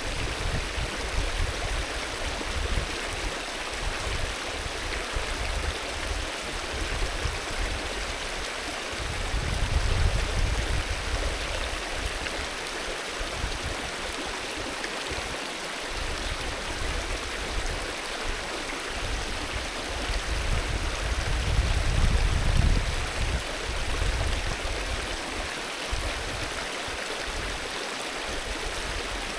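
Alpine river flowing steadily over its bed, a continuous rushing and gurgling of water. A low rumble swells twice, about a third of the way in and again about three quarters of the way through.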